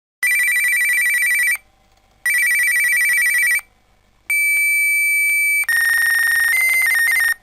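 Fax machine sounds: two warbling electronic rings of about a second and a half each, then a steady high answer tone, then the dense warbling, chirping handshake tones of a fax connection starting up.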